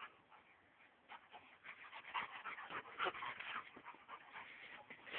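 Two dogs playing, a big one and a small one, panting and making short whimpering sounds in quick, irregular bursts that pick up about a second in.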